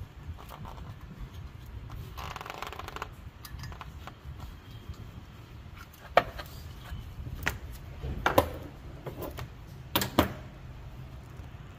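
A hand ratchet clicking in a quick run about two seconds in as the water pump pulley bolts are turned, followed by several sharp metallic clicks and knocks of the tool and socket against the pulley and bolts, the loudest near the end.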